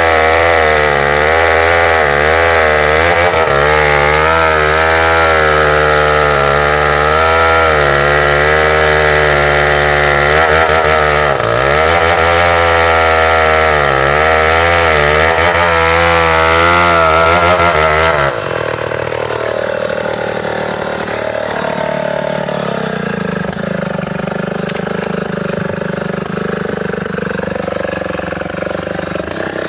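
Tecogold 700 chainsaw running at high revs, its pitch wavering up and down as it cuts bengkirai hardwood. About 18 seconds in it drops abruptly to a lower, quieter running.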